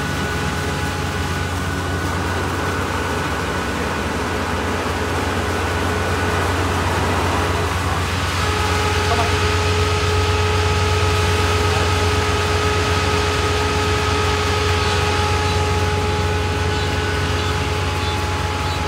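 Kubota ER448 four-row, 48-horsepower diesel combine harvester running under load as its header cuts and feeds in standing rice: a steady engine drone with a steady high whine over it. About eight seconds in, the whine drops to a slightly lower pitch.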